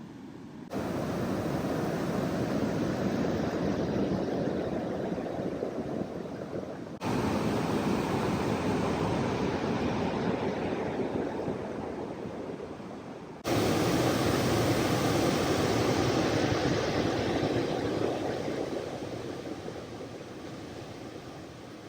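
Steady rushing of water at the Manavgat waterfall. It comes in three stretches, each starting suddenly and slowly fading.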